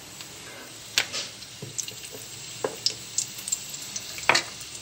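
Pocket samosas frying in hot oil in a kadhai: a steady low sizzle with scattered crackles and pops, and one louder knock about four seconds in.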